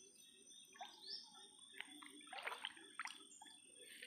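Faint water sloshing and dripping from wading through shallow mangrove water, with a few short splashes, the strongest about two and a half seconds in.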